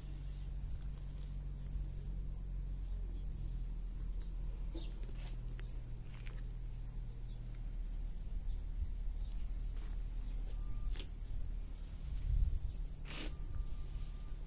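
Outdoor garden ambience: a steady high-pitched insect chirring over a low steady hum, with a few faint clicks and one sharper knock about thirteen seconds in.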